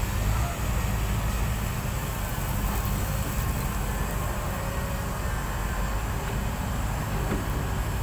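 Diesel engine of a Hyundai crawler excavator running steadily under load as it digs and swings a bucket of gravel, a low, even rumble.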